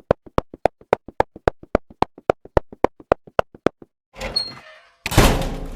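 Sound effects: a fast, even run of short knocks, about seven a second, for nearly four seconds. Then a brief rustle, and near the end a loud bang or slam that dies away over about two seconds.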